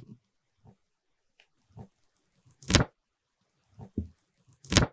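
Handling noise as the thin plastic protective film is peeled off an iPhone 4's screen and the phone is moved in its cardboard box: scattered soft crinkles and ticks, with two sharper crackles, one about three seconds in and one near the end.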